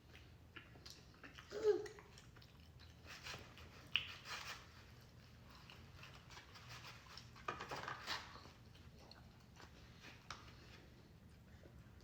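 Quiet mealtime handling sounds from a takeout meal: scattered clicks and short rustles of utensils and food containers, with chewing. A brief vocal sound comes about two seconds in.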